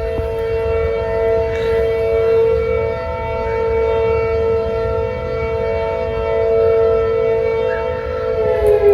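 Outdoor tornado warning siren sounding a steady tone. Near the end it begins to wind down, its pitch falling.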